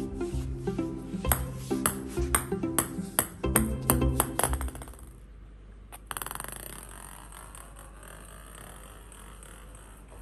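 Background music with plucked strings, joined by the sharp ticks of a ping-pong ball bouncing on a wooden floor, the bounces coming quicker and quicker as it settles about five seconds in. Then a quieter, steady sound of the ball rolling across the floor starts suddenly and slowly fades.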